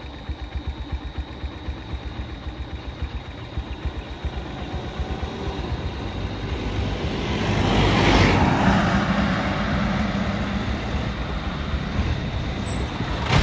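A vehicle engine idling with a regular low throb. From about six seconds in, another vehicle approaches and grows louder, loudest around eight seconds.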